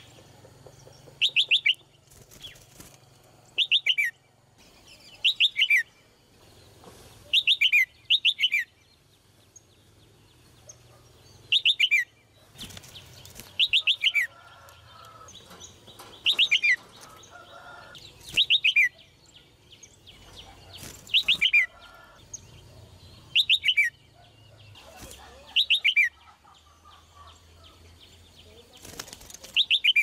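Red-whiskered bulbul calling in short loud phrases, each a quick run of whistled notes falling in pitch, repeated about every two seconds. Sharp knocks and wing flutters come between the phrases as the bird moves about its cage.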